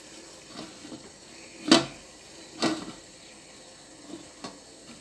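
Two short knocks about a second apart, with a few fainter taps around them, from handling a frying pan on the stove.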